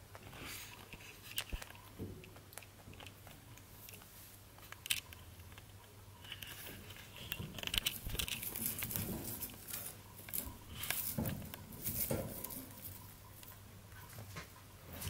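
Baby rabbit eating hay from a hanging hay ball: quick crunching chews and dry rustling of hay stalks as strands are pulled loose, busiest in the second half.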